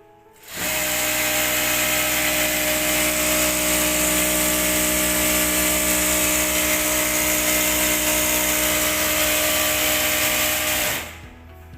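Panda PD-W7-D1 sewing machine running steadily at speed, a loud, even mechanical whir that starts about half a second in and stops near the end.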